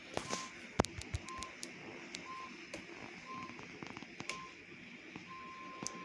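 Heavy torrential rain with wind, a steady hiss broken by sharp knocks of drops. Over it, a high electronic beep sounds about once a second, five short beeps and then a longer one held for about a second near the end.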